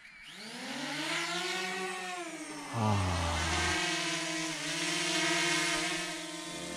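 DJI Mavic Mini quadcopter's propellers spinning up as it lifts off: a whine of several tones that climbs in pitch over the first two seconds, drops back, then holds fairly steady.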